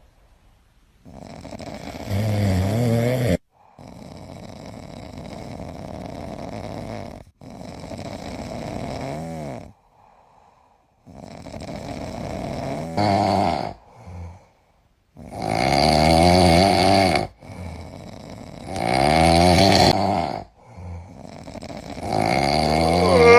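Domestic cat snoring in a series of about eight breaths, each a couple of seconds long with short pauses between them and a buzzing rattle. The last few snores are louder.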